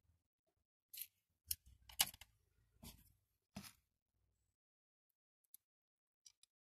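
Five short sharp clicks and scrapes of small hand tools and metal parts being handled at a workbench, the loudest about two seconds in, then a few faint ticks near the end.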